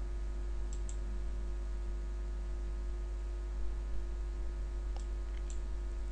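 Steady electrical hum on the recording, with a few faint computer-mouse clicks: a pair about a second in and two more around five seconds in.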